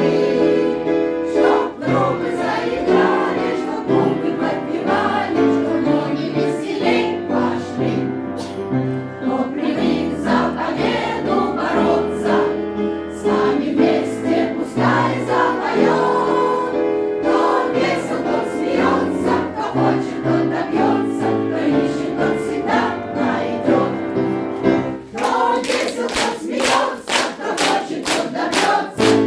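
A veterans' choir singing a song in Russian in unison with instrumental accompaniment. About 25 seconds in, the sung lines give way to the accompaniment playing rhythmic chords.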